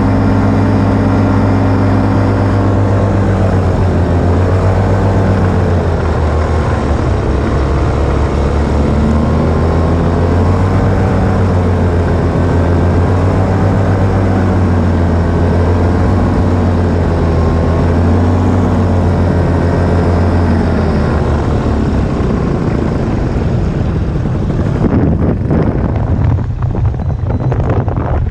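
Paramotor engine and propeller running steadily in flight, its note wavering slightly up and down. Near the end the engine note drops away and gusty wind noise on the microphone takes over.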